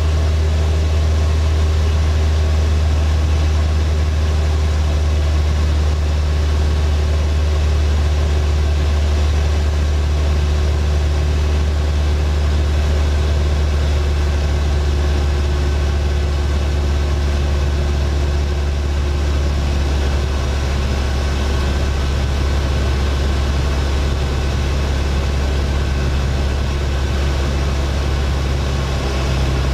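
Single-engine floatplane's piston engine and propeller running steadily in flight, a loud low drone heard from inside the cabin. The engine note eases off slightly about two-thirds of the way through.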